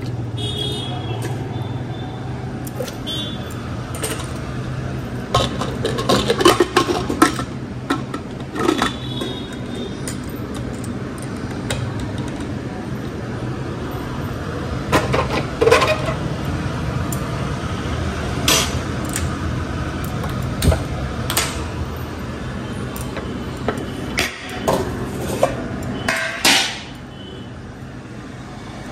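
Kitchen work at the stove: an aluminium pressure cooker and its lid being handled and closed, with metal utensils clinking and knocking many times over a steady low hum. The hum drops away near the end.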